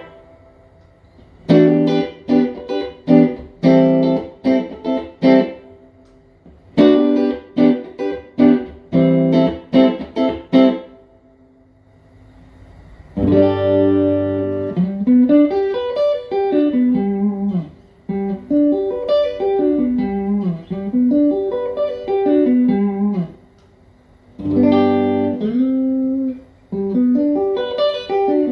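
Fender Player Plus Telecaster electric guitar played clean through a Fender Tone Master Super Reverb amp. First come short rhythmic chord stabs, then a pause of about two seconds. After that a ringing chord gives way to picked single-note lines and arpeggios, and after a brief pause a new chord rings out near the end.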